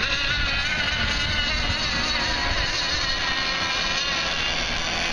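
Several radio-controlled racing boats running at speed together, their engines making overlapping high whines that waver up and down in pitch as the boats race around the course.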